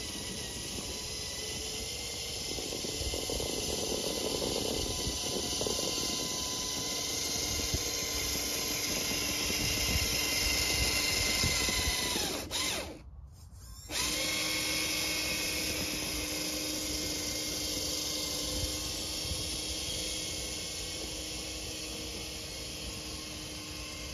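Electric motor and gear whine of an RC monster truck (Tamiya Clodbuster) driving through snow, growing louder as it comes close. About halfway it winds down and stops for a second or so, then starts up again and runs on steadily.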